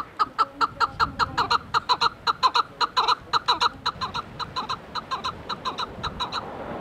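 Chukar partridge calling: a rapid run of short, sharp clucking notes, about six a second, that stops about six seconds in. After it, the steady rush of a fast river.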